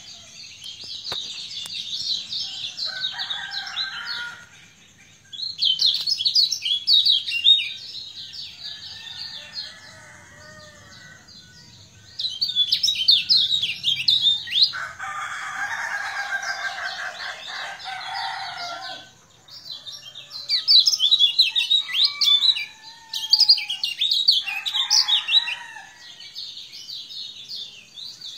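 A caged kecial kuning, a small white-eye songbird, singing a rapid high twittering song in bursts of about two seconds, repeated five times or so. A rooster crows in the background about halfway through, with shorter lower calls near the start and end.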